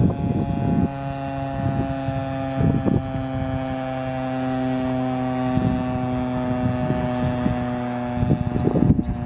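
Federal Signal STH-10 12-port outdoor warning siren sounding one steady, level tone. Wind buffets the microphone at the start and again near the end.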